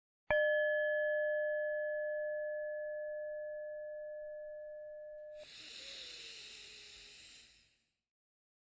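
A single struck meditation bell rings out with a few clear pure tones and fades slowly, cut off about five seconds in. Then a soft breath sound, a rush of noise, runs for about two seconds.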